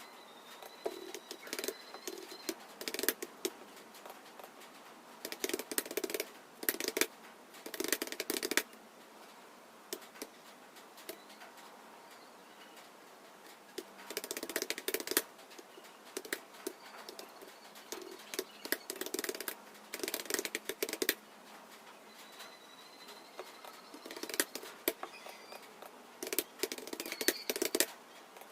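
Computer keyboard typing: bursts of rapid keystroke clicks lasting a second or two, separated by short pauses.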